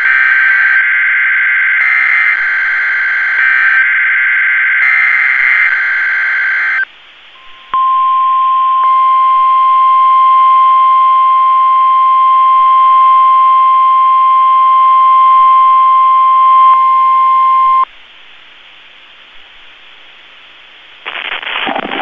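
NOAA Weather Radio Required Weekly Test alert signals: the SAME digital header sent as three bursts of buzzing data, then a single steady 1050 Hz warning alarm tone for about ten seconds that cuts off sharply. A voice starts again near the end.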